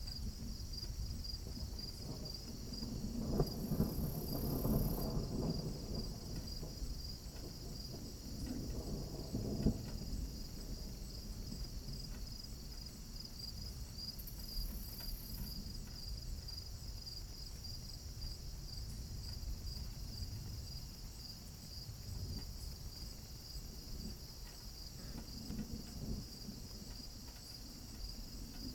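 Crickets chirping steadily. Low rumbles of distant thunder swell up about three to five seconds in and again around nine seconds, with a fainter one near the end.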